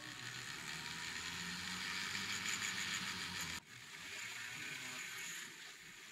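Handheld rotary tool spinning a polishing wheel against polishing compound and a brass wire earring: a steady hissing whir. It drops abruptly to a quieter whir about three and a half seconds in.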